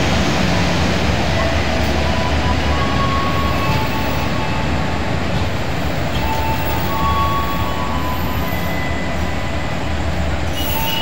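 Passenger train coaches rolling past on the rails with a steady rumble. Thin metallic wheel squeals come and go every second or two over it.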